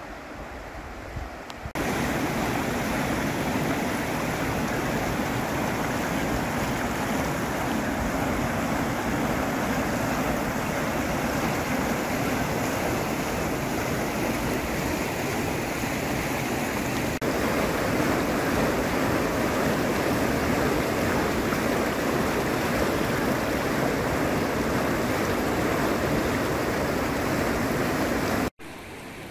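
Flood-swollen river pouring over a low weir: a loud, steady rush of water that starts suddenly about two seconds in and cuts off just before the end.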